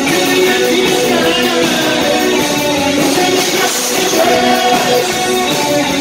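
Live rock band playing a new wave song: keyboard synthesizer, electric guitars and drums, with a man singing.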